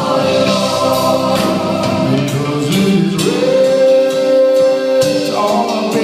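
Live rock band playing, with voices singing held notes in harmony instead of words; one long note holds from about halfway until near the end.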